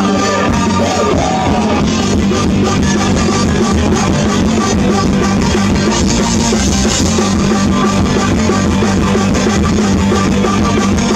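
Live rock band playing loud through a PA: electric guitar and drum kit driving a steady rock song.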